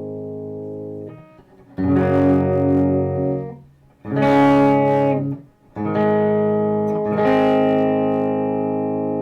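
Electric guitar fitted with Fleor Alnico 5 two-wire humbuckers, played through a Boss Katana Mk II 100 combo amp: a series of strummed chords, each left to ring, with brief gaps between them.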